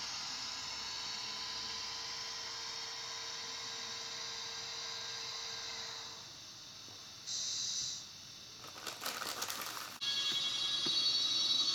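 ESU LokSound decoder in a Bemo RhB model electric locomotive, playing through its small speaker. A steady running whine with a held tone dies away about six seconds in as the locomotive comes to a stop. A brief hiss follows about a second later, then a short crackle, and near the end a new steady high-pitched tone starts.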